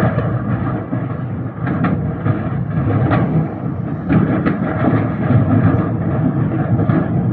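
Large building fire burning fiercely: a steady low rumbling roar with scattered sharp pops and cracks.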